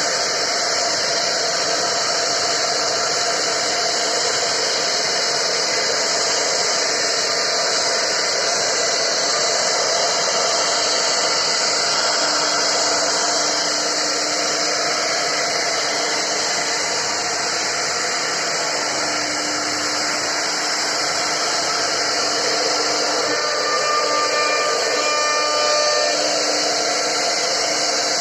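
CNC router spindle running steadily as its bit carves a wooden board, a continuous even noise with no pauses.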